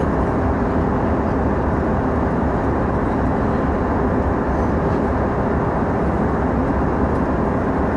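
Passenger airplane cabin in flight: a steady rumble of engine and airflow noise, with a faint constant hum underneath.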